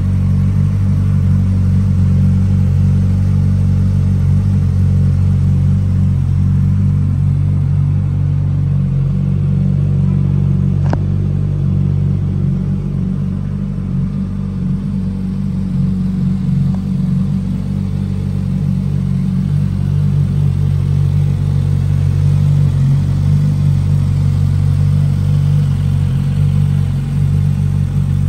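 Suzuki GSX-S1000GT motorcycle's inline-four engine idling steadily, with an even low exhaust note.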